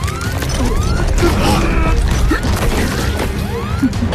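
Action-film soundtrack: dramatic score music layered with sci-fi mechanical sound effects, metallic clicks and clanks over a low rumble, with short rising electronic tones that repeat throughout.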